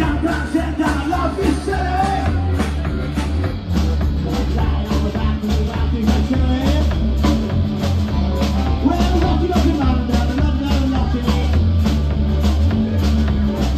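Live rock band playing: drum kit keeping a steady beat under bass and electric guitar, with a man singing.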